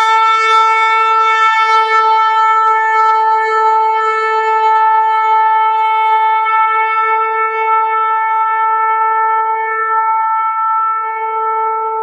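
A shofar blown in one long, steady held note.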